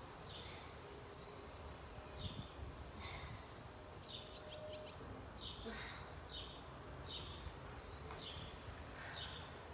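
A songbird repeating short, faint chirps that drop in pitch, about one a second, over a low background hum.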